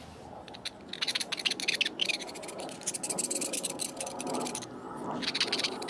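A screwdriver scraping rust and gunk out of the metal fuel bowl of a Honda HRA 214 lawnmower carburetor, in quick irregular scratchy strokes with a short pause about four and a half seconds in. The gunk is left from fuel standing in the bowl.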